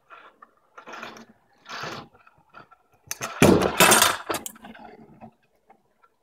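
Stunt scooter ridden at a jump during a tailwhip attempt: two short rushes of wheel noise as it approaches, then a loud clatter of deck and wheels hitting the pavement about three and a half seconds in, followed by smaller rattles.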